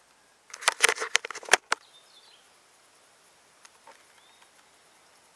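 A quick run of sharp clicks and knocks about half a second in, lasting just over a second: hands picking up and handling a pistol slide.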